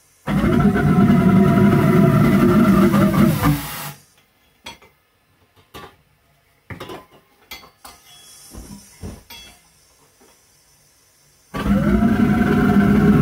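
Homemade valveless pulse jet engine running on butane-propane gas, starting with a loud, steady pitched drone just after the start and cutting out suddenly after about three and a half seconds. A scatter of clicks and knocks follows, then the engine fires again about a second and a half before the end and keeps running.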